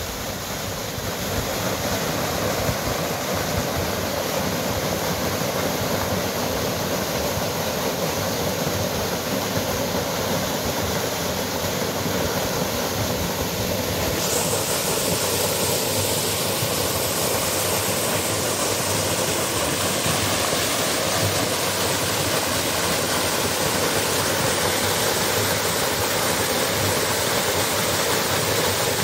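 Small mountain waterfall pouring into its plunge pool, a steady rush of falling and splashing water that grows hissier about halfway through.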